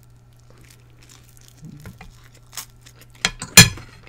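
Close-miked eating sounds: faint scrapes and clinks of cutlery on a plate, then a few sharp clicks near the end, the loudest about three and a half seconds in.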